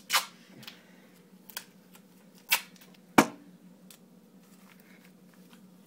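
Duct tape being pulled off the roll and pressed around a small taped package: a few short rips and crackles, with a sharper knock about three seconds in, over a low steady hum.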